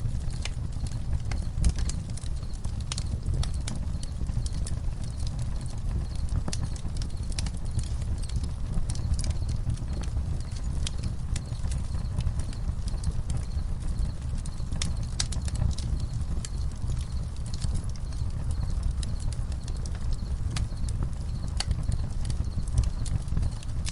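Campfire crackling: irregular sharp pops and snaps over a steady low rumble, with crickets chirping faintly and high in the background.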